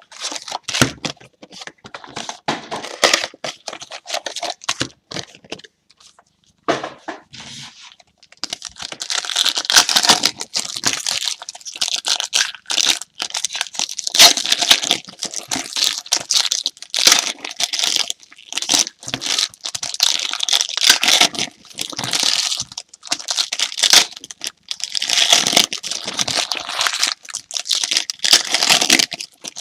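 Trading-card box packaging being torn open and crinkled by hand: irregular bursts of tearing and rustling wrapping, with a brief lull about six seconds in.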